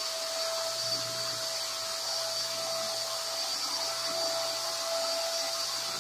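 Handheld electric paint sprayer running steadily while spraying a wall: an even motor whine with a steady high tone over a hiss.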